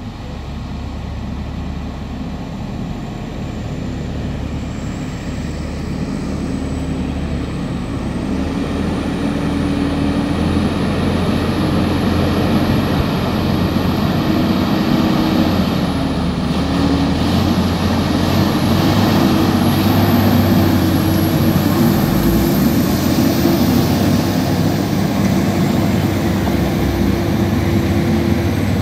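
Heavily loaded Volvo tractor unit's diesel engine labouring under a roughly 65-tonne load of precast concrete slabs as it tries to pull through mud, running steadily and slowly climbing in pitch and loudness, with a high whine rising over it.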